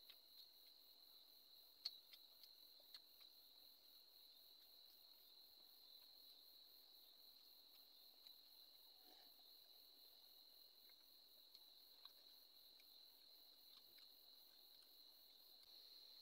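Near silence with crickets trilling faintly and steadily at a high pitch, and a few soft clicks about two to three seconds in.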